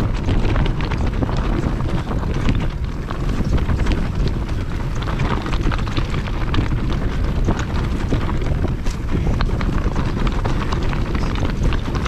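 Mountain bike rolling fast down a rocky singletrack: tyres crunching and clattering over loose stones, with a constant run of rattling knocks from the bike. Steady wind rumble on the microphone underneath.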